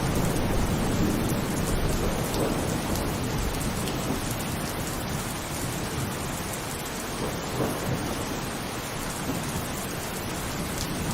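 Heavy rain pouring steadily, with a low rumble of thunder through the first half that fades off by the middle.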